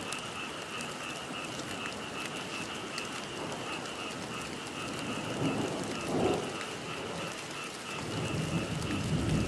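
Steady rain with an unbroken, pulsing high-pitched night chorus behind it. Two louder low rumbles come about halfway through and near the end.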